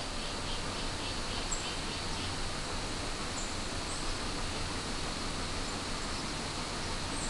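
Outdoor ambience: a steady, high insect chorus over an even hiss, with a few short, high chirps now and then.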